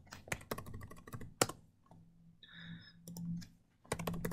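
Computer keyboard typing: irregular key clicks with short pauses as figures are typed into spreadsheet cells.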